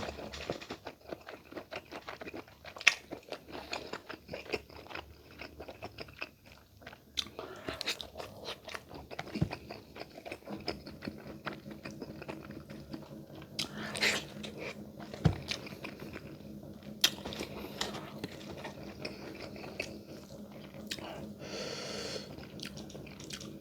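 Close-miked eating: chewing and lip-smacking with short crunchy bites, clicks scattered all through. A low steady hum comes in about ten seconds in.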